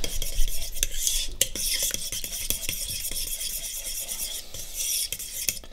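A metal fork stirring and scraping a thick mixture of ground cashews and coconut milk in a ceramic mixing bowl, with many quick, irregular clicks of the fork against the bowl.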